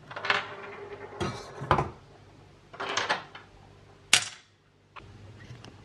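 Rusty steel vise parts clinking and knocking against a stainless-steel saucepan as they are laid into it by hand, about five separate knocks spread over the first four seconds.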